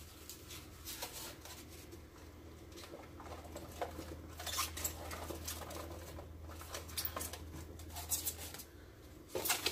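Onion pieces being added to the soup pot: scattered light taps and patter, with a few sharper clicks, over a low steady hum.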